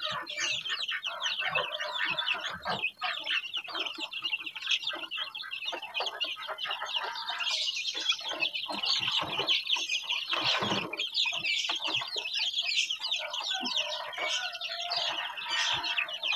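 A brood of young kampung (Indonesian native) chicks peeping without pause, many shrill chirps overlapping.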